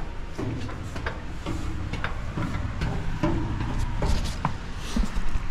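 Footsteps coming down a metal spiral staircase and onto the floor below: a series of knocks and clanks, about two a second, with handling and clothing rustle throughout. The strongest knocks come near the end.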